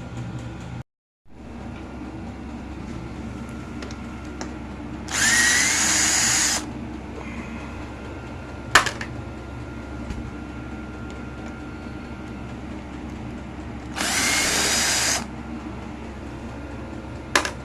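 Power drill-driver running in two short bursts of about a second and a half each, its motor whine rising as it spins up, taking out the screws that hold the motorcycle's crash bars and fairing plastic. A single sharp click falls between the two bursts.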